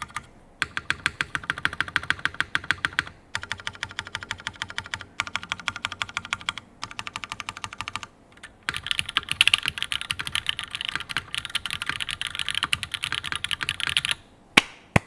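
Fast typing on a TGR Jane v2 CE mechanical keyboard with Cherry MX Black linear switches (glass tops), GMK keycaps and a top-mounted carbon fibre plate. Rapid keystroke clacks come in runs broken by short pauses, and two louder single strikes follow near the end.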